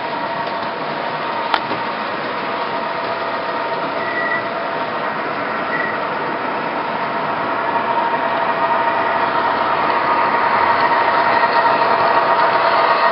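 O-gauge three-rail model subway train running on the layout, its electric motors whirring and wheels rolling on the track with a steady hum that grows louder as the train approaches and passes close by near the end. One sharp click a little over a second in.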